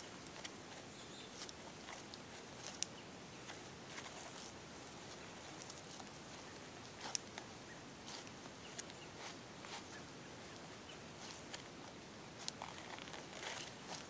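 Faint, irregular rustling and small clicks from hands and a multi-tool working inside a deer's body cavity during field dressing, over a steady hiss. A few sharper ticks stand out, about three seconds in, about seven seconds in, and near the end.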